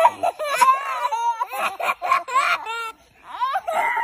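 Two toddlers laughing hysterically together, high-pitched laughs in quick repeated bursts, with a brief pause about three quarters of the way through.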